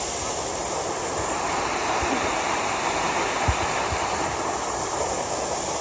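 Waterfall rushing steadily into its pool, with a couple of brief low thumps about three and a half seconds in.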